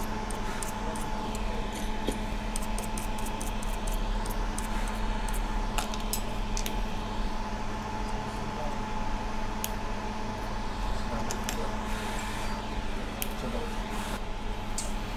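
Steady low hum with a faint high tone under it. Small scattered clicks and scratches of metal tweezers work over a phone logic board as leftover solder flux is cleaned off around a chip.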